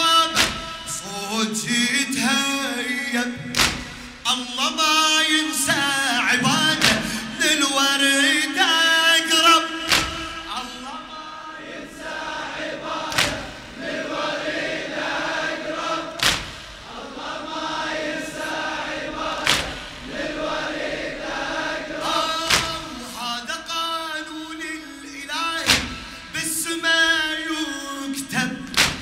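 A male radood chants a Shia mourning elegy (latmiya) solo into a microphone. From about twelve seconds in, the congregation sings the refrain in unison, and the solo voice returns near the end. Sharp thumps of chest-beating (latm) fall about every three seconds, in time with the chant.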